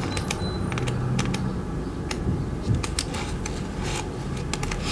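Oracle card and small paper guidebook being handled and leafed open: many small, irregular clicks and paper rustles over a low steady hum.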